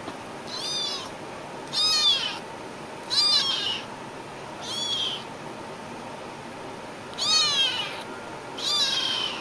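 Young kitten meowing six times, thin high-pitched calls that rise and fall, spaced about a second or more apart, over a steady background hiss.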